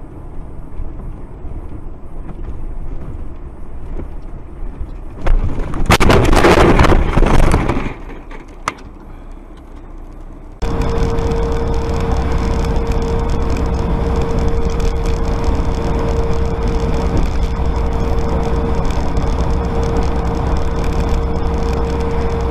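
Vehicle road noise, broken about five seconds in by a loud crash lasting about two seconds, then a sharp click. Near the middle it cuts abruptly to louder, steady road noise with a constant hum.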